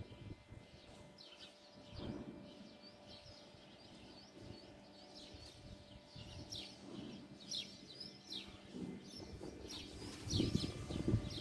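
Small birds chirping faintly, many short high calls one after another. About ten seconds in, a louder low rumble on the microphone comes in.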